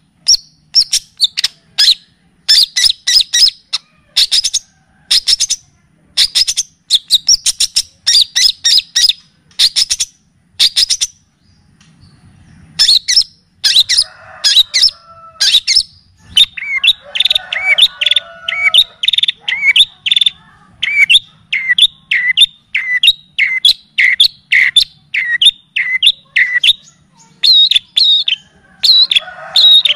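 Long-tailed shrike (cendet) song in kapas tembak and cililin style: fast clusters of sharp, high chirps, a brief pause, then a steady run of rising whistled notes about two a second before the quick chirping resumes.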